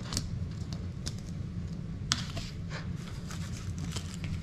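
Kitchen knife slicing a raw fish fillet on a plastic cutting board: scattered light ticks and taps of the blade on the board, with one sharper tap about two seconds in, over a steady low hum.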